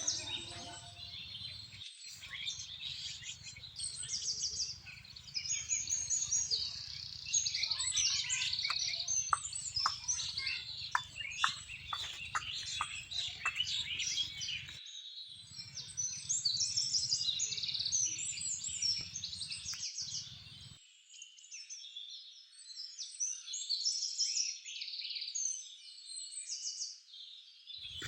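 Many birds chirping and singing together in a dense chorus of short high calls and trills, with a run of about seven repeated sharp call notes about a third of the way in. A low steady rumble lies underneath and cuts off about two-thirds of the way in.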